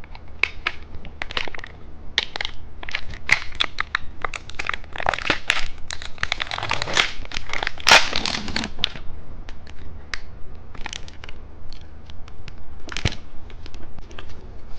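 Plastic snack wrapper crinkling and crackling close to the microphone as a cheese stick snack is handled and opened. It is a run of sharp crackles, with a denser stretch of crinkling about seven seconds in.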